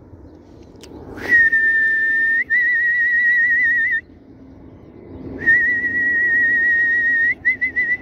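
A person whistling: a long high note that breaks into a fast warble, a pause, a second long warbling whistle, then a few short quick whistles near the end.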